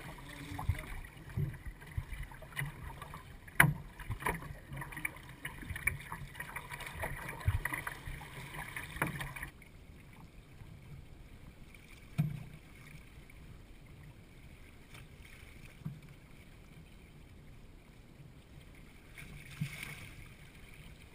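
Water washing and splashing along the hull of a wooden Eureka sailing canoe under sail, with scattered knocks and slaps of chop against the boat. About halfway through the sound drops suddenly to a quieter wash, broken by a few single thumps.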